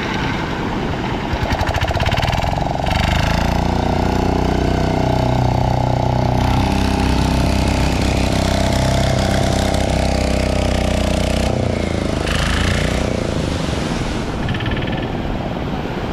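Boat engine running loudly and steadily with a rapid pulsing beat; about twelve seconds in its pitch drops as it slows.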